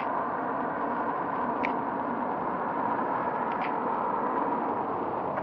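Steady hiss-like noise with no clear pitch, with two faint, brief high chirps, one about a second and a half in and one about three and a half seconds in.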